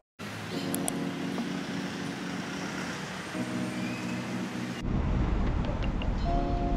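City street traffic ambience: a steady hum of vehicles, which changes suddenly to a louder low rumble about five seconds in.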